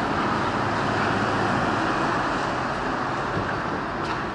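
Steady road traffic noise from the highway the underpass runs beneath, swelling slightly about a second in and easing near the end.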